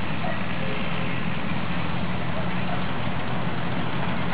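A miniature railway's diesel-outline locomotive, with its engine running with a steady low hum as it hauls a passenger train.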